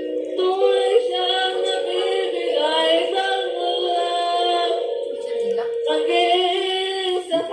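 A woman singing an emotional song into a microphone, holding long sustained notes.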